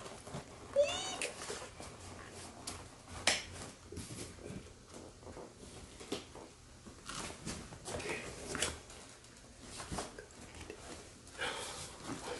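Cardboard box and packing material rustling and clicking as a parcel is unpacked by hand, with one short rising-and-falling cry about a second in.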